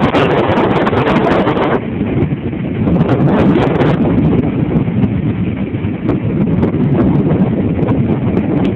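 Big storm waves breaking and washing over a seaside pier, a continuous loud rumble, with heavier surges near the start and again about three seconds in. Strong wind buffets the microphone throughout.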